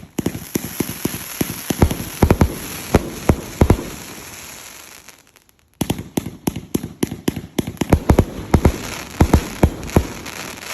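Multi-shot fireworks cake firing: quick sharp pops over a steady crackling hiss, in two runs with a short lull about five seconds in.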